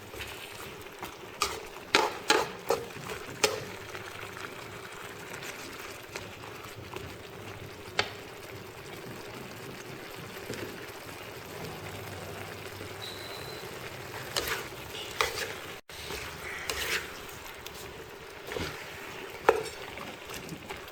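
Beef and sweet mini peppers stir-frying in a pan: a steady sizzle, with a spatula scraping and knocking against the pan in several short clusters.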